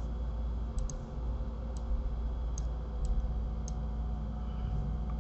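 Faint, irregular clicks, about six of them, one a quick double click, from a computer mouse and keyboard being worked, over a low steady hum.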